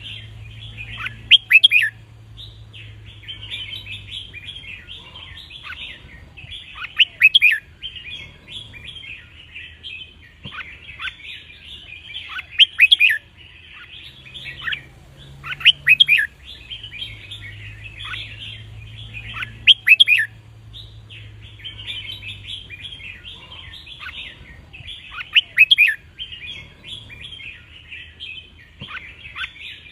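Red-whiskered bulbul singing: steady chattering, broken every few seconds by loud, sharp song phrases, about seven in all. It is the bulbul song played for counting phrases and for teaching young birds to sing.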